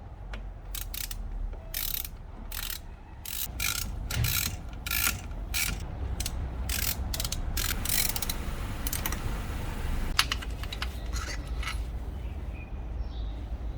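Ratchet wrench with an extension and 13 mm socket clicking in uneven runs of strokes as it loosens the bolts that hold the coil pack on a Jeep inline-six engine.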